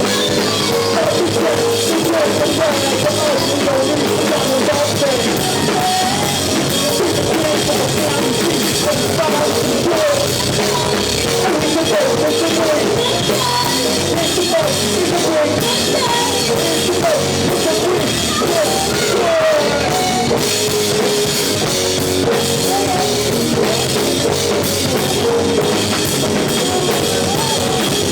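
Live band playing a loud rock-style instrumental passage, led by a drum kit with melodic lines over it.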